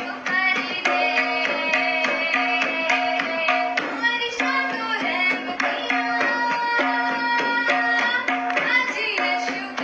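Worship music: hand drums keep a quick, even rhythm over a low held note and a melody line.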